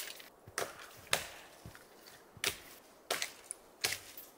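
Blade chopping into wood: about six sharp strikes at an uneven pace.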